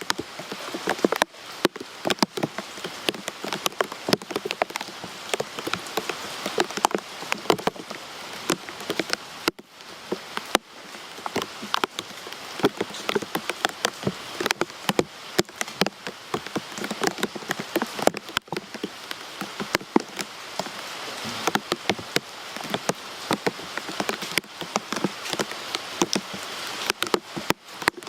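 Steady rain falling, with many separate sharp drop impacts pattering on a surface.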